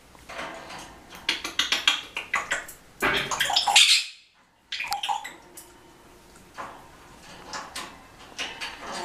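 African grey parrot in its cage making a run of sharp clicks and rattles, then a loud rushing burst about three seconds in that cuts off abruptly, followed by scattered clicks.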